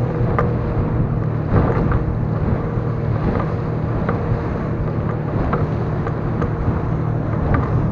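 Suzuki outboard motor running steadily as an inflatable boat moves over choppy sea, with the hull slapping on the waves now and then and wind buffeting the microphone.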